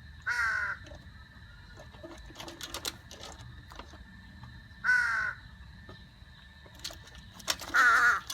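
Crow cawing three times, harsh drawn-out caws about a second in, around the middle and at the end, with a few light clicks in between.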